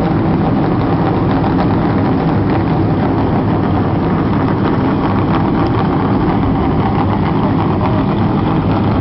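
Several NASCAR Nationwide Series stock cars' V8 engines running loud and steady as a line of cars moves along pit road close by.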